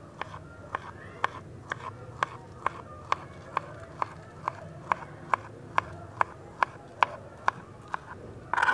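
Kitchen knife slicing a peeled banana on a plastic cutting board, the blade tapping the board about twice a second in a steady rhythm.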